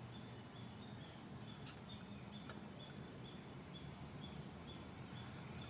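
Faint, high, short chirps repeating evenly about twice a second over a low steady hum, with a couple of soft ticks.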